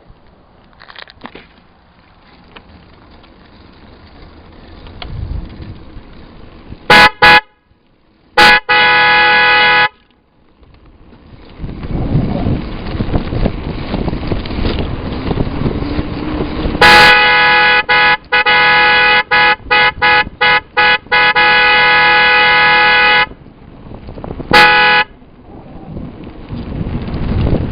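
Wolo Maxi Sound 320-2T two-tone electric car horns, fitted to a mountain bike, sounding in very loud blasts. There are two quick toots, then a blast of about a second and a half, then a long run of blasts broken by many brief gaps, and a last short toot near the end. A rushing noise fills the pauses between blasts.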